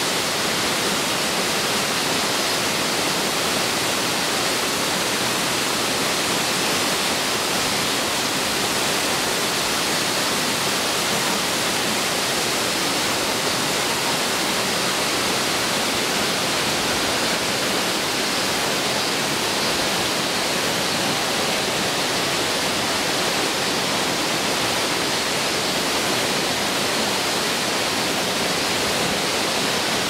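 Yōrō Falls, a tall single-drop waterfall, plunging down a rock face into a shallow pool: a loud, steady rush of falling water that does not change.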